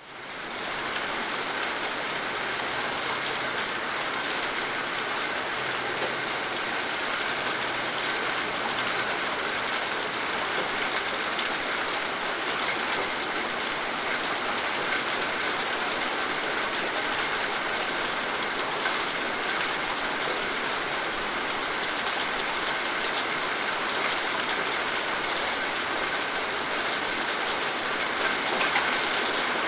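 Steady rain falling and pattering on a surface, a dense even hiss with many small drop ticks, fading in over the first second.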